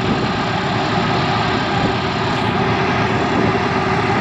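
Alvis Stalwart amphibious truck's Rolls-Royce straight-eight petrol engine running steadily under load as it drives the vehicle through the water on its water jets, heard across the water as a continuous drone.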